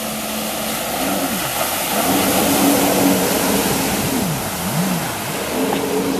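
Personal watercraft (jet ski) engine running hard at close range, its pitch rising and falling several times as the throttle opens and eases, over the hiss of its spray and wake.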